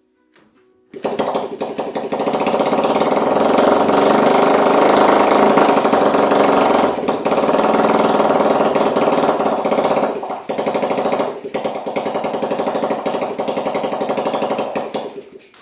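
Honda C70 Super Cub's 70cc single-cylinder four-stroke engine, bench-run out of the frame, catching about a second in after a few faint clicks and running loudly with a rapid, even beat. It dips briefly a few times, runs a little unevenly near the end, and then stops.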